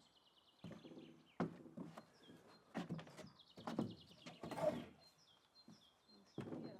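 Small birds chirping repeatedly, with about five sharp knocks from the building work and brief low voice-like sounds in between.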